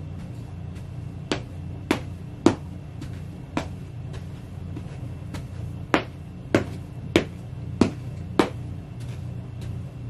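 Sheepskin Ugg boots stomping on the floor: about nine heavy, sharp stomps in two runs, roughly 0.6 s apart, with a pause of about two seconds between them. A steady low hum runs underneath.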